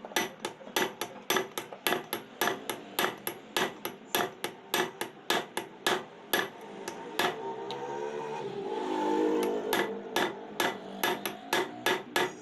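Repeated hammer blows, about three a second, on a gearbox part during its disassembly. They pause for a moment near the middle, where a pitched grinding or scraping sound rises and falls before the hammering starts again.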